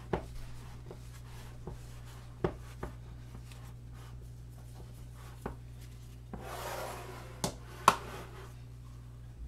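Paper towel rubbing around the rims of glass mason jars while they are wiped clean before lidding, with light knocks of the jars on the countertop. About two-thirds through comes a longer scrape as a jar is slid across the counter, followed by the sharpest glass knock.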